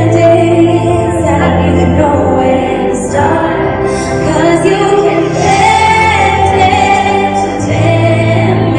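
Live pop music from a concert sound system: a band playing held bass and keyboard chords under a woman singing.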